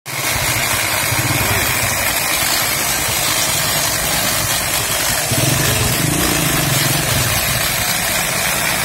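An electric motor running steadily, cutting in suddenly at full level, with a faint steady high tone over its noise.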